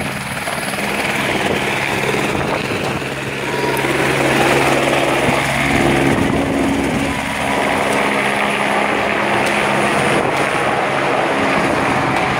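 A light helicopter lifting off and climbing away overhead, its turbine engine and rotor running loud and steady at takeoff.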